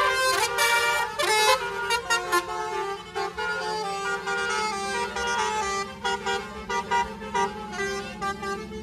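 Multi-tone musical vehicle horn of the Indonesian telolet/basuri kind, playing a tune of stepped notes without a break. A low steady hum joins underneath about four seconds in.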